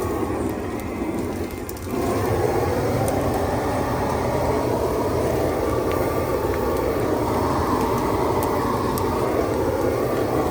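Large brush-pile bonfire burning with a steady rushing noise and occasional faint sharp pops.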